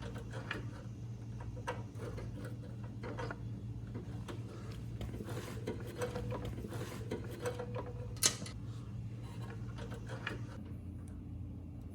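Small clicks and rattles of a new bail control cable and its fittings being worked into place on a lawn mower's handle and engine bracket, with one sharp click about eight seconds in, over a steady low hum.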